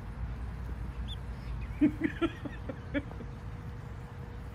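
Young chickens clucking: a quick run of about five short clucks about two seconds in, over a steady low rumble.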